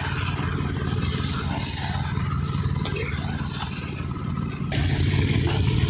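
Chicken pieces frying in oil in a steel kadhai and sizzling, with a spatula scraping and clinking against the pan as they are stirred. A steady low hum runs underneath.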